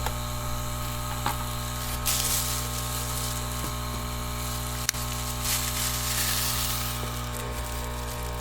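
Vaporizer's air pump running steadily as it fills the balloon bag: a motor hum under a rushing hiss of air. The hiss surges louder about two seconds in and again around five and a half seconds, with a sharp click near the five-second mark.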